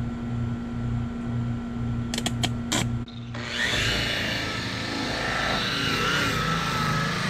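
Handheld electric buffing polisher running steadily, with a few sharp clicks about two and a half seconds in; about three and a half seconds in the sound becomes louder and fuller, with a wavering whine.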